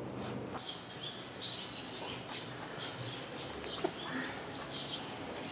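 Outdoor ambience: scattered faint bird chirps over a steady high-pitched hum.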